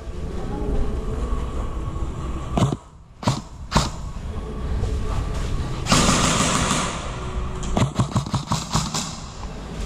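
Airsoft guns firing in a concrete building: a few single shots around three seconds in, then a rapid string of shots near the end, over a steady low rumble. About six seconds in there is a second of loud rushing noise.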